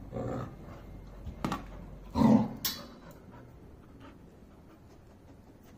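Labrador dog vocalising during rough play: a few soft short sounds at the start, then one short, loud vocal burst a little over two seconds in, followed by a sharp click.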